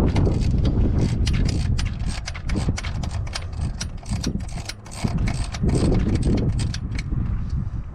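Irregular sharp clicking and tapping of hand tools on metal, several clicks a second, over a continuous low rumble.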